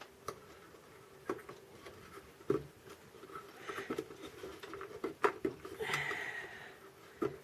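Scattered small clicks and rattles of hands working circuit-board connectors inside an opened Roland MKS-20 digital piano module, pulling plugs and reseating them. The clicks are irregular, about six in all, over a faint steady hum.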